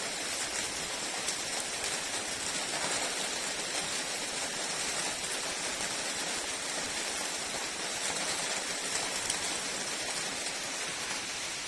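Heavy rain falling steadily, an even hiss of rain with scattered drop ticks.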